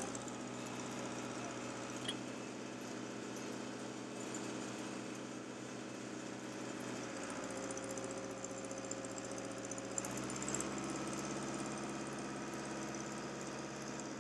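Soil drill rig's engine running steadily, with a held whine rising out of it for a couple of seconds around the middle and a small click about two seconds in.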